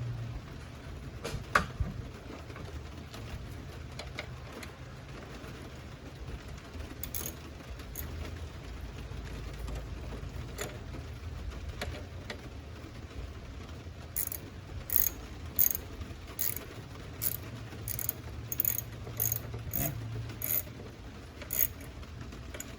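Socket ratchet clicking as bolts are worked back in, a few odd clicks at first and then a quick run of short strokes, about one and a half a second, starting about two-thirds of the way through.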